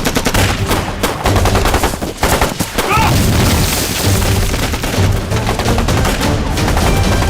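Sustained rapid gunfire, with automatic weapons firing in quick succession, over a dramatic film score.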